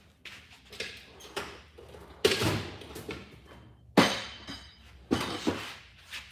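Metal hand tools clanking: a few light knocks, then three loud sharp clanks about a second apart, each with a short ringing tail.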